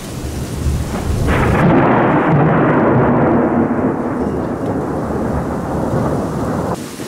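A loud peal of thunder rumbling over rain. It builds about a second in and cuts off abruptly near the end.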